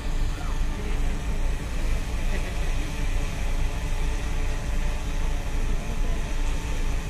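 Wind buffeting the microphone: a steady, gusting low rumble over faint outdoor background noise.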